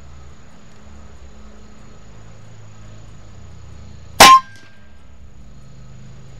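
A single shot from an AGT Vulcan 3 .25-calibre PCP air rifle: one sharp crack about four seconds in, with a brief ring after it.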